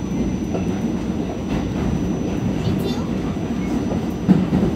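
R46 subway car running through a tunnel: a steady low rumble of wheels on rail, with a single louder thump near the end.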